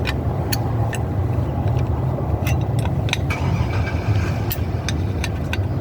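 A steady low engine rumble of a running vehicle, with scattered light metallic clicks as the drum brake's parking brake adjuster is wound down.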